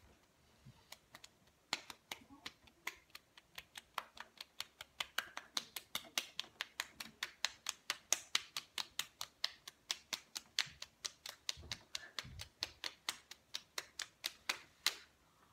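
Open hands slapping bare cheeks in a rapid, even series of smacks, several a second, a few spaced ones at first and then a steady run that stops just before the end.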